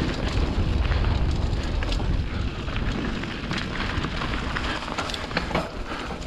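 Mountain bike rolling fast down a gravel and dirt singletrack: wind rumbling on the microphone, with tyres crunching over stones and the bike rattling in many short clicks.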